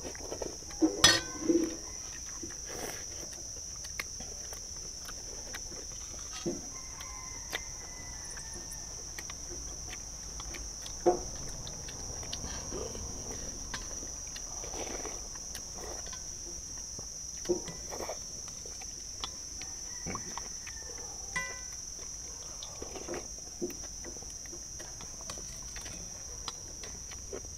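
Fast eating of noodles: slurping and chewing, with sharp clicks of chopsticks and spoons against stainless steel bowls now and then, over a steady high-pitched insect drone.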